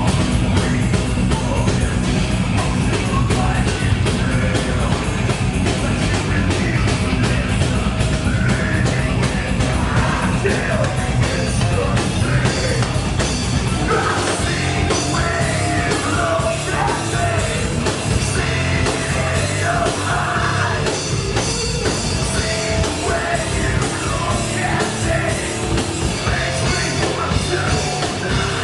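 Metal band playing live at full volume, a dense wall of band sound. Vocals come in over it about halfway through.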